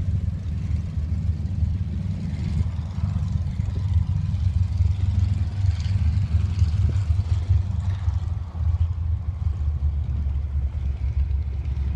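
Wind buffeting the microphone, a steady low rumble that flutters irregularly, with faint engine noise from distant propeller planes taxiing.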